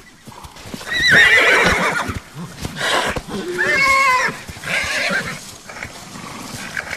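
Young Lipizzaner stallions squealing as they scuffle in the herd: a shrill call about a second in, another about four seconds in and a rougher one just after, with scattered hoof knocks.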